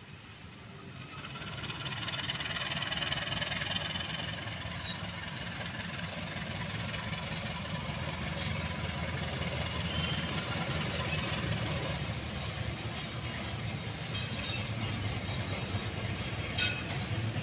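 KAI CC 203 diesel-electric locomotive hauling fuel tank wagons at low speed. Its diesel engine runs with a steady low rumble that swells over the first two seconds as it approaches, and a few sharp clicks come in the second half.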